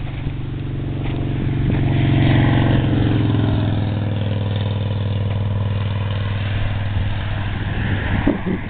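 A motor vehicle's engine running steadily, swelling louder about two seconds in and then holding, with wind buffeting the microphone.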